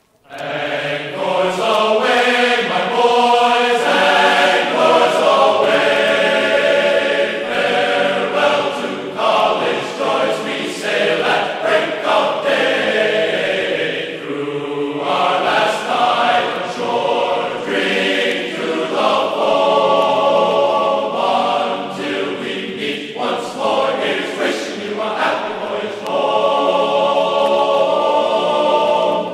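A choir singing, several voices holding long notes together.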